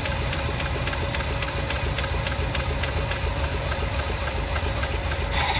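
1985 Chevrolet C10's carbureted engine idling on fuel poured straight into the carburetor, with an even run of ticks about five a second. It grows briefly louder and hissier near the end.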